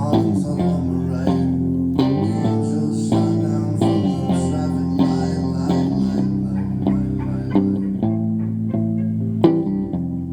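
Live band music with bass guitar and guitar prominent, punctuated by sharp accents.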